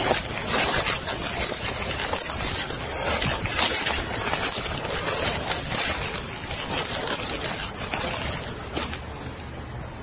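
Footsteps crunching and rustling through dry leaf litter and brush on a forest floor, picked up close by a body-worn camera, with an irregular crackle of leaves and twigs; it gets quieter over the last second.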